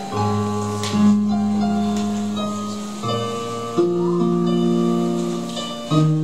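Slow instrumental church music: held chords that change every second or few, with no singing.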